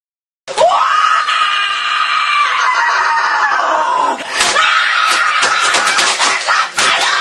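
A boy screaming: one long, high scream that falls slightly in pitch starts about half a second in. From about four seconds in he keeps screaming while pounding on a computer keyboard, a fast run of sharp clacks.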